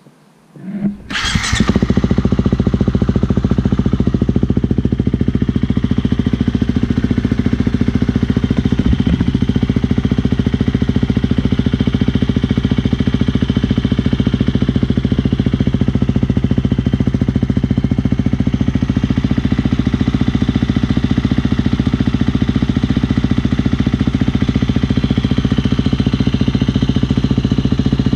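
2017 Husqvarna FE350's single-cylinder four-stroke engine, fitted with an FMF 4.1 titanium/carbon slip-on with the spark arrestor removed, starting about a second in and then running steadily and loud.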